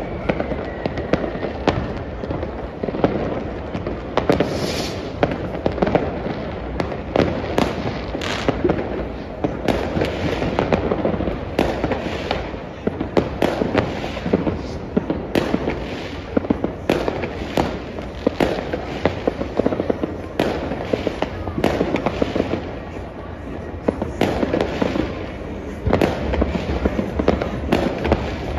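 New Year's Eve fireworks and firecrackers going off all around: a continuous, irregular rattle of bangs and crackles. There is a short falling whistle about a second in.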